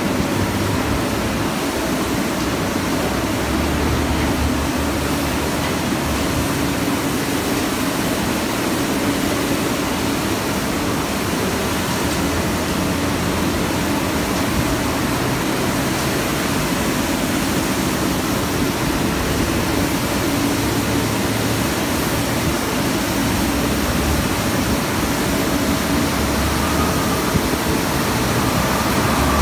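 Global M4 mechanical broom street sweeper running as it sweeps along the curb: a steady rushing noise from its brooms and machinery with a low engine hum underneath.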